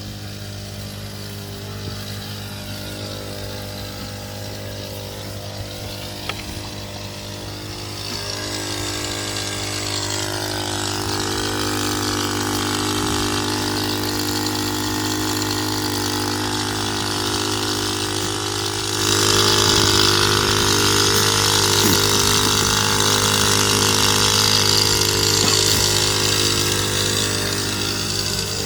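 A motor running steadily with a deep hum, growing louder about eight seconds in and stepping up again, with more hiss, about nineteen seconds in.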